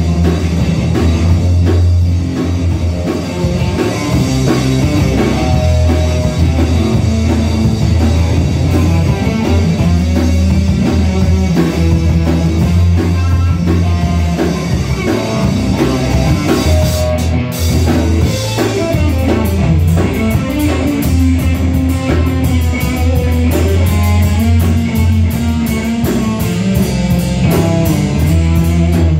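Live three-piece band playing an instrumental ska-style jam: electric guitar, electric bass and drum kit, with a prominent bass line and steady drum beat.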